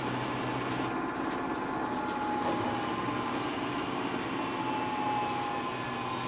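Samsung Eco Bubble washing machine running mid-cycle: a steady motor hum with a thin whine that drifts slightly in pitch, over the noise of the turning drum.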